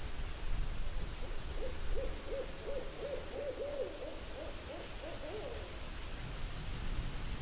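Surf washing on a sandy beach, a steady low rumble, with a quick run of about a dozen short hooting notes from about a second in until near the end.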